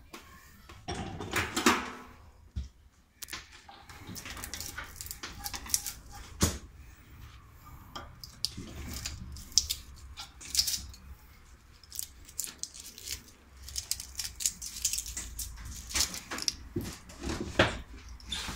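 Metal tool clinking and scraping against a small electric motor's stator clamped in a steel bench vise as its copper windings are pried out: irregular sharp clicks and knocks with rasping scrapes between them.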